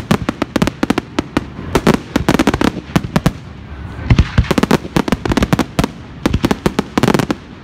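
Aerial fireworks bursting overhead: a dense run of sharp cracks and pops, with a few deeper booms about four seconds in and again near the end.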